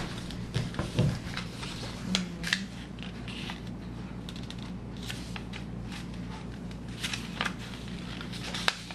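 A sheet of paper being folded and creased by hand: irregular rustling and sharp crackles, loudest about a second in and again around two and a half seconds, over a steady low hum.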